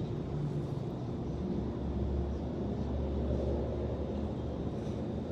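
Low, steady outdoor rumble that swells for a couple of seconds in the middle.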